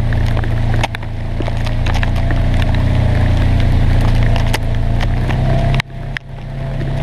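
Polaris Ranger XP900 side-by-side's twin-cylinder engine running steadily while under way, with frequent sharp clicks and rattles over the drone. The sound drops out briefly twice about six seconds in.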